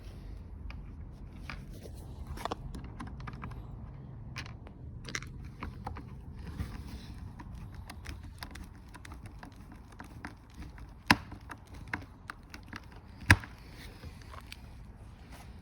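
Scattered clicks and knocks of plastic toy-car parts being handled and fitted together, with two sharper knocks about eleven and thirteen seconds in, over a low steady hum.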